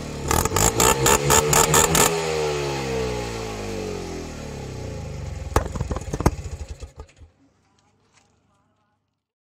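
A tuk tuk engine revs while a homemade exhaust backfire kit (an old spark plug in the exhaust, fired by an ignition coil) lets off a rapid string of pops and bangs, about five a second. The revs then fall away, there are two more loud pops near the end, and the engine dies out about seven seconds in.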